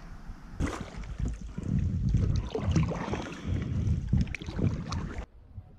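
Kayak paddling: paddle splashes and water sloshing around the hull, with wind rumbling on the microphone. The sound cuts off abruptly near the end.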